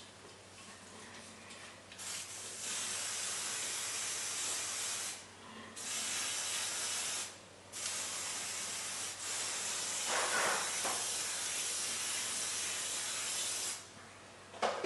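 Aerosol hair sheen spray (ORS Olive Oil) hissing in three bursts, the last one about six seconds long, with two short pauses between them.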